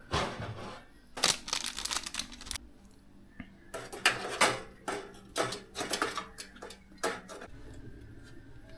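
Small hard computer parts clattering and clicking as they are handled, in several bursts of rattling that die away near the end.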